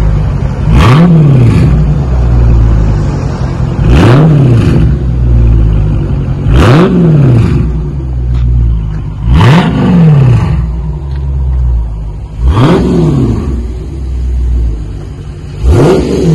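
A 2023 Dodge Challenger Scat Pack's 392 HEMI V8 is blipped six times, about every three seconds. Each rev climbs sharply and falls back to idle. The exhaust runs through Walker Dynomax race bullet mid mufflers with the factory resonators kept.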